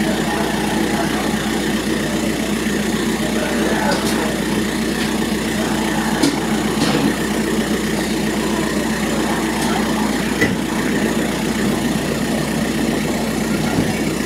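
An engine running steadily, a low even drone that holds the whole time, with a few faint ticks over it.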